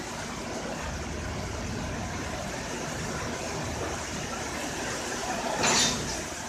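WCAM3 electric locomotive shunting onto a coach for coupling. A steady rushing noise runs throughout, and a short, loud, sharp clank of the coupling comes about a second before the end.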